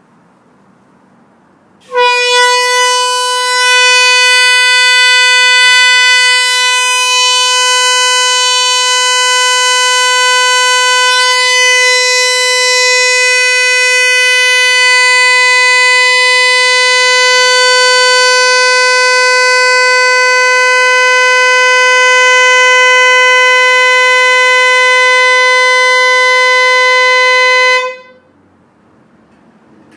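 A horn sounding one long, unbroken honk of about 26 seconds at a single steady pitch. It starts abruptly about two seconds in and cuts off sharply near the end.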